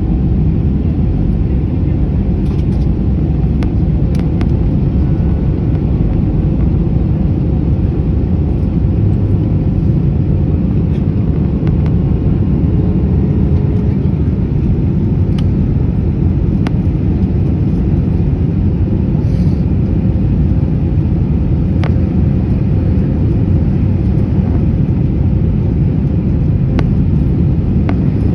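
Steady low rumble of an Airbus A321 jet airliner, even and unchanging, with a few faint ticks.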